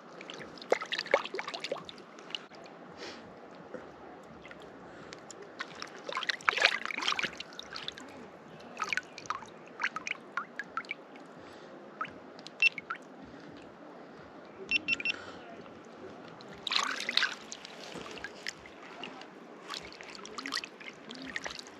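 Water splashing and trickling in irregular bursts as a freshly gutted brown trout is rinsed out by hand, over a steady low wash of water.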